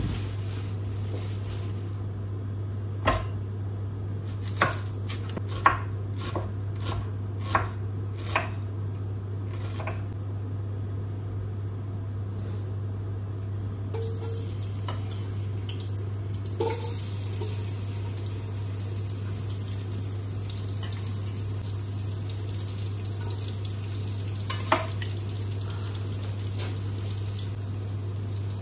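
Kitchen knife knocking sharply on a wooden chopping board as onions are cut, about a dozen strokes in the first ten seconds and a couple more later, over a steady low hum. From about halfway through, a steady hiss and bubbling from a large pot of water boiling on the hob.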